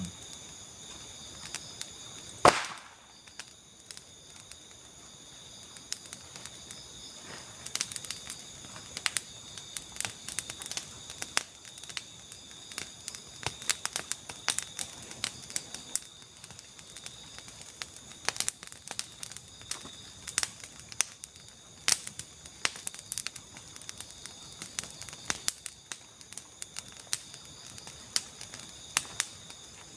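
Steady high-pitched chorus of night insects, with scattered sharp clicks and crackles throughout and one louder click about two and a half seconds in.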